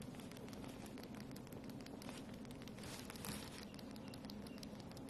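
A cat licking a kitten's fur close up: a quick, irregular run of faint soft tongue clicks and fur rustling.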